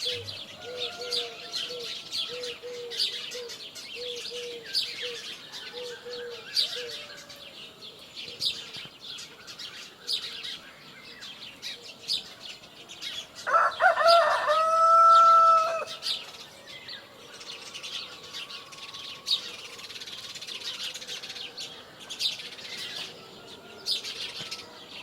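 Many small birds chirping throughout, with a low call repeating about twice a second for the first seven seconds. A rooster crows once, loud and drawn out, about halfway through.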